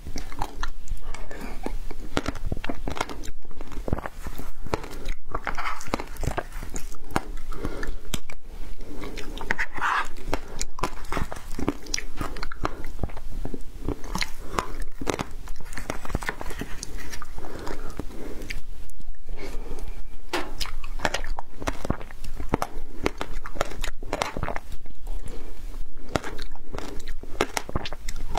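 A person biting and chewing frozen passion fruit ice, a dense run of irregular crunches and crackles, close to a clip-on microphone.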